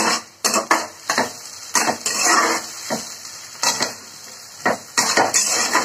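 Metal spatula scraping and knocking against a steel kadhai in irregular strokes while stirring chopped onion and garlic frying in oil, with a faint sizzle underneath.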